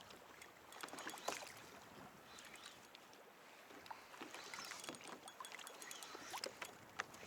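Faint water lapping and small splashes around a fishing kayak, with scattered light clicks and ticks and a couple of sharper knocks on the hull, one near the start and one near the end.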